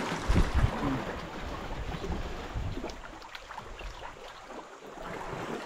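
Wind and water noise around a small boat at sea, with a few low thumps about half a second in.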